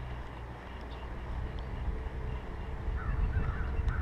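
Wind buffeting the microphone of a chest-mounted camera, a low uneven rumble that grows toward the end, with a few faint bird chirps about three seconds in.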